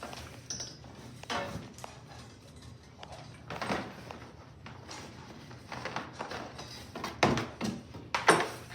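Handling noise from unpacking the parts of a boxed animatronic Halloween prop: scattered rustling and knocks, the sharpest two near the end.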